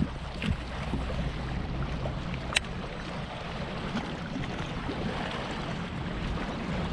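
Steady wind noise on the microphone and water lapping on the open water, with one sharp click about two and a half seconds in.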